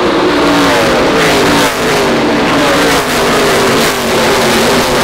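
A pack of NASCAR Truck Series V8 race trucks accelerating past on a restart. Their engine notes drop in pitch one after another as each truck goes by.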